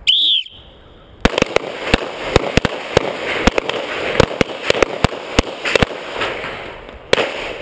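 A short beep of a start signal, then about a second later rapid handgun fire, roughly three to four shots a second, as shooters knock bowling pins off their tables. The firing thins out near the end, with one more loud shot.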